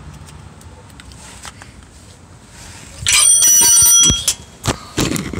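A steel hand tool clangs and rings for about a second, with several clear ringing tones, followed by a few sharp knocks and clatters.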